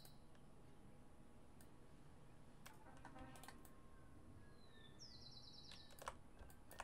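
Near silence with a few faint computer keyboard and mouse clicks, a small cluster about three seconds in and a couple near the end, and a short faint high-pitched chirp about five seconds in.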